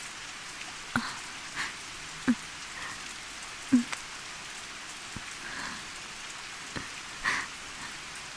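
Steady rain falling, with a single drip landing about every second and a half.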